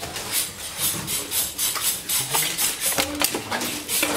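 Long knife sawing through a tuna's skin and flesh along its back in quick back-and-forth strokes, a rasping scrape about four or five times a second.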